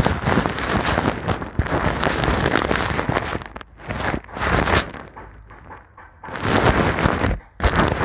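A brush rubbed directly on a foam microphone windscreen, giving a loud, dense scratchy crackle. It fades about five seconds in, returns about a second later, and has brief breaks between strokes.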